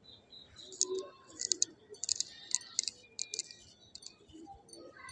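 Straight razor scraping over the skin of a woman's cheek and sideburn, cutting the facial hair in a series of short, crisp scratchy strokes, several in quick succession, close to the microphone.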